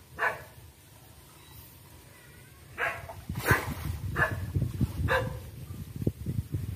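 A dog barking: one bark at the start, then a run of about four barks from about three seconds in, roughly 0.7 s apart, over a low crackling noise.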